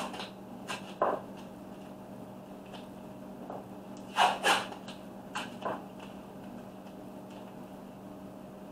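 Green vinyl masking and tape on a tumbler crinkling as gloved hands handle them, in a few short rustling bursts over a steady low hum.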